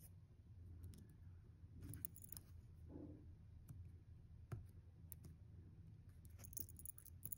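Near silence with a few faint clicks and light scrapes as a toothpick and fingers work a photo into a small metal heart locket; the sharpest click comes about four and a half seconds in.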